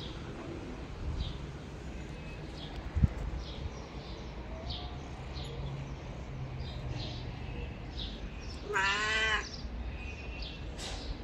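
Ginger-and-white cat gives a single drawn-out meow about nine seconds in. Short high chirps repeat in the background, and there is one sharp tap about three seconds in.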